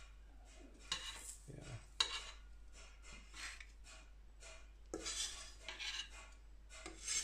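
Wok spatula scraping and clinking against a carbon steel griddle in irregular strokes, with one sharp clink about two seconds in.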